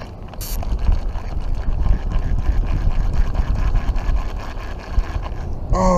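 Wind buffeting the microphone in a loud, gusting rumble, with the plastic toy fishing reel clicking rapidly as its handle is cranked to reel in the line.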